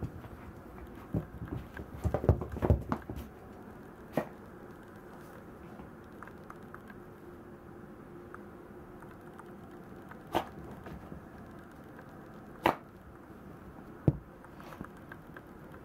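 A Maltese dog playing with a cloth slipper on a blanket: soft thumps and rustling as it paws and worries at the slipper, with a quick cluster of knocks about two to three seconds in and a few single thumps later.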